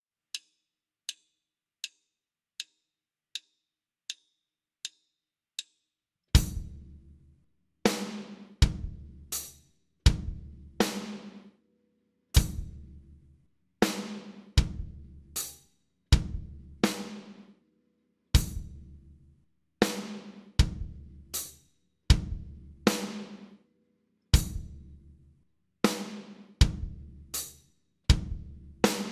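Eight faint, evenly spaced count-in clicks about three-quarters of a second apart. About six seconds in, a drum kit comes in at 40 beats a minute, playing a slow rhythm of quarter and eighth notes. Each stroke is a drum hit together with a cymbal that rings on.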